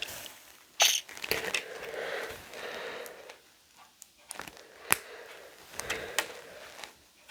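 Small plastic LEGO pieces being handled and pressed together: a few sharp clicks, the loudest about a second in, among softer rustling and rattling.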